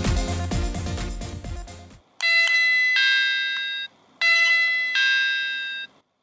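Electronic background music ends about two seconds in. Then a miniature toy door chime plays its two-note electronic 'pin-pon' doorbell chime twice, about two seconds apart.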